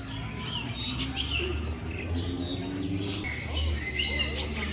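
Birds chirping and calling, many short rising and falling chirps overlapping, over a steady low rumble.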